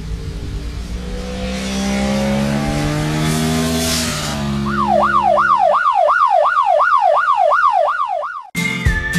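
A motorcycle engine running past, its note climbing for several seconds, then a yelp siren wailing rapidly up and down, about three sweeps a second. Near the end both cut off suddenly and a whistled tune with plucked guitar begins.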